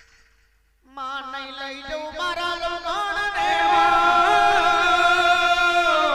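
Folk devotional singing in a jagar recital: after a brief silence, a voice comes in about a second in with a long drawn-out sung phrase, its pitch wavering in ornaments, then held steadily on sustained notes.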